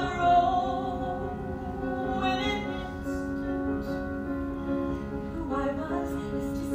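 A woman singing, her voice holding long notes over a sustained instrumental accompaniment from a theatre pit band.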